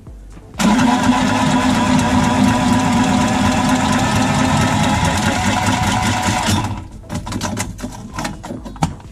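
Cordless copper tubing cutter running steadily for about six seconds as it cuts through a copper heating pipe, then stopping; a few light clicks follow.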